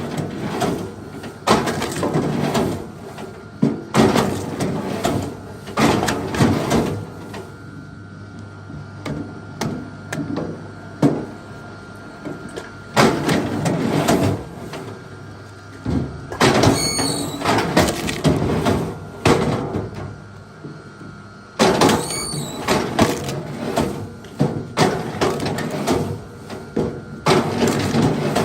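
Big logs of wood being worked by hand: irregular bouts of knocking, scraping and cracking wood, with short pauses between them.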